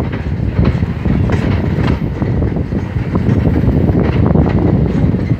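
Union Pacific passenger cars rolling past at close range: a steady rumble of steel wheels on rail, with irregular clicks as the trucks cross rail joints.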